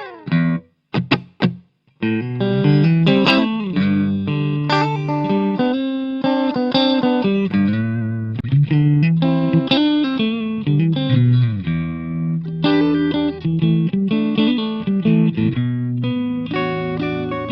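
Guitar playing: a few short plucked notes with gaps, then a continuous line of notes and chords from about two seconds in.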